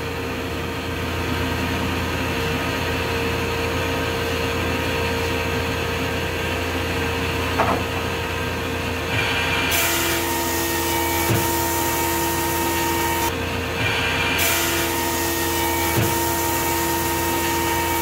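Grizzly G0891 15-inch helical-cutterhead planer running with a dust collector, then planing a board, the cutting hiss coming in about ten seconds in. A single thump as the board starts to feed is the sign of the feed rollers skipping.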